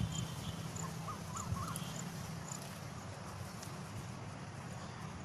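Outdoor ambience with faint bird calls: a few short chirps between one and two seconds in, over a steady low hum.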